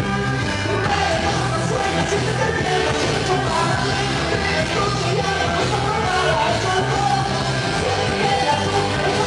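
Loud music with singing, played over a sonidero's stage sound system to a packed dance crowd.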